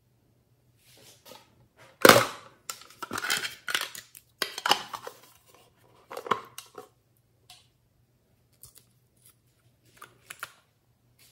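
Close handling of plastic slime containers and a glass nail polish bottle: a sharp knock about two seconds in, then bursts of clicking and rattling, thinning to a few light ticks near the end.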